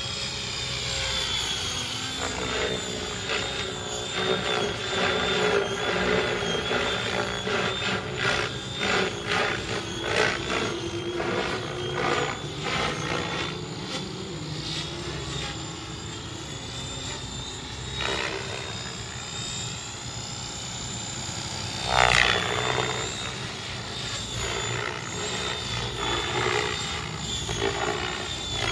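Align T-Rex 700E electric RC helicopter flying aerobatic manoeuvres: a steady high motor whine under rotor-blade swishes that swell and fade as it flips and turns, the loudest about 22 seconds in.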